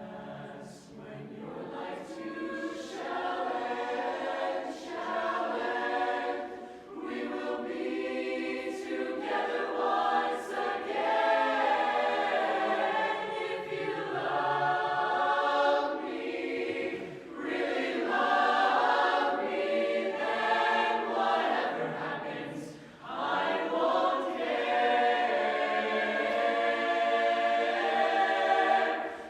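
Youth mixed chorus of male and female voices singing a cappella in close barbershop harmony: sustained chords in phrases, with short breaks for breath between them.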